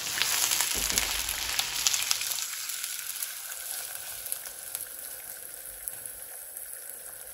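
Chunks of raw beef head meat sizzling in hot oil with browned onions in a wok while being stirred with a spatula. The crackling sizzle and stirring scrapes are busiest in the first couple of seconds, then the sizzle settles and grows quieter.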